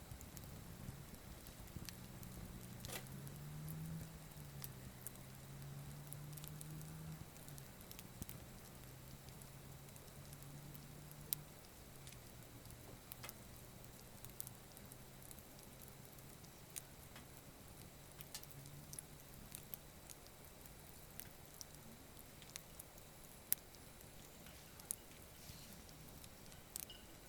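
Small, weakly burning wood campfire crackling, with sparse sharp pops scattered irregularly. A faint low hum underlies the first half and fades after about twelve seconds.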